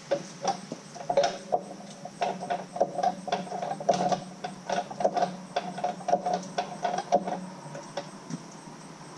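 Hydraulic floor jack being pumped: a quick run of metallic clicks and creaks, several a second, that stops near the end, over a steady low hum.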